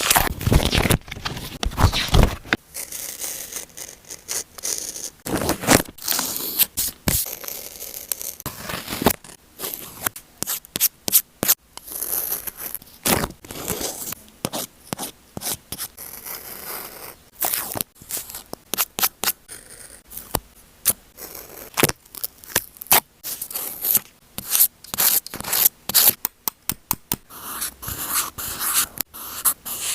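Paper being handled while a journal is decorated: a dense, irregular run of short scrapes and rubs, with sharp clicks and taps in between.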